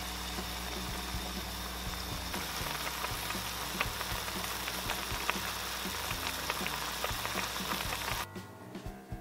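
Pot of ramyeon noodles boiling hard in spicy broth: a dense bubbling hiss full of small pops, which drops away suddenly about eight seconds in.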